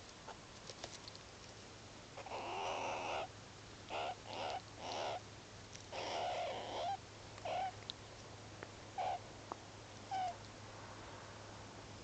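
A group of meerkats calling while they groom and huddle: a series of short calls, two of them longer, around two and six seconds in, the rest brief and spaced out, with the last near ten seconds in.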